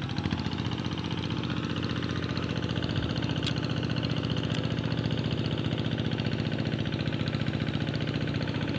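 Tractor engine running steadily, with a fast, even chugging pulse.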